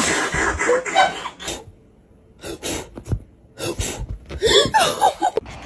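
A person laughing in several short bursts.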